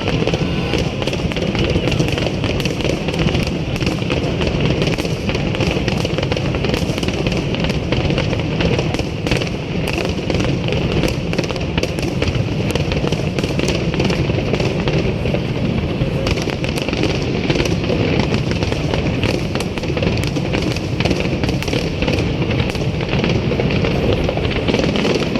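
Fireworks display going off without pause: a dense, rapid run of bangs and crackles.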